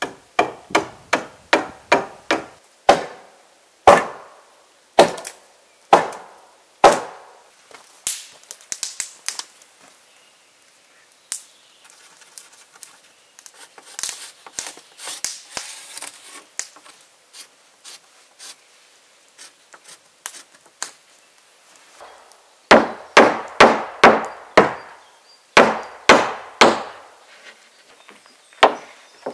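Sharp blows of a hand tool on wood, in quick runs of several strikes a second, as a charred roof board is fixed in place. There is a quieter stretch of faint rustling and handling in the middle.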